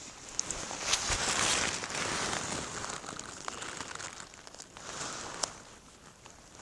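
Adhesive tape being pulled off the roll and wrapped around a branch to fix a small clip-on microphone: crinkling and ripping with scattered clicks, loudest about a second in and fading towards the end.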